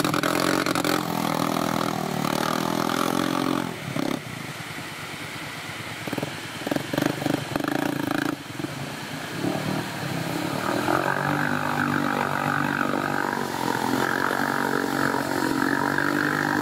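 Kawasaki Brute Force 750 ATV's V-twin engine revving hard as it churns through deep mud and water. It eases off about four seconds in, surges unevenly for a few seconds, then holds high revs again through the second half.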